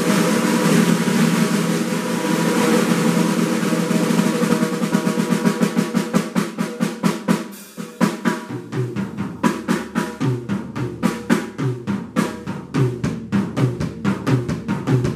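DW acoustic drum kit played solo: a sustained snare roll that opens out into rapid separate strokes, a brief drop-out about eight seconds in, then a fast beat with bass drum and snare.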